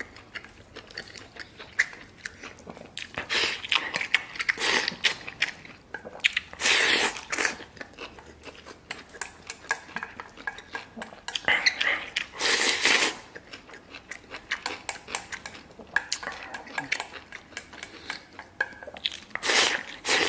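Close-miked eating: a person chewing and slurping food from a stainless steel bowl, with wooden chopsticks clicking and scraping against the bowl. Every few seconds comes a loud slurp lasting about a second.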